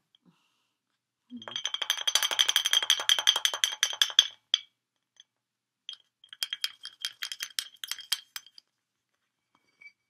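A cockatoo rapidly tapping its beak against the neck of a glass wine bottle, making fast runs of clinks with a ringing glass tone. Two runs: one of about three seconds starting a little after the start, and a shorter one about six seconds in.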